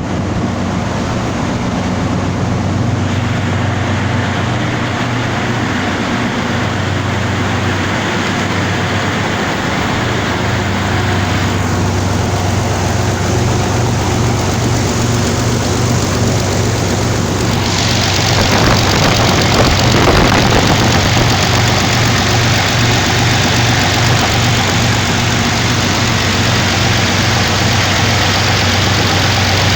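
Kirovets tractor's YaMZ-240 V12 diesel running steadily on its first run after a repair. About 18 seconds in it turns brighter and a little louder.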